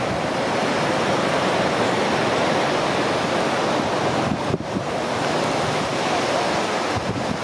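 Steady rush of sea waves and wind, with no engine or voice standing out; it dips briefly about four and a half seconds in.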